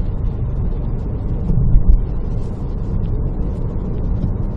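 Road and tyre noise inside the cabin of a 2011 Chevrolet Volt climbing on battery power: a steady low rumble with no engine note, and one low thump about two seconds in.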